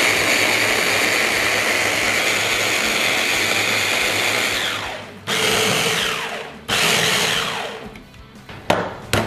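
Hand blender with a chopper bowl attachment running in pulses as it chops tomato and onion: one long run of about five seconds, then two short bursts, the motor winding down with a falling whine after each. Two sharp clicks near the end.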